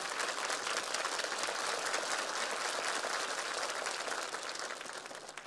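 Studio audience applauding, a dense patter of many hands clapping that dies away near the end.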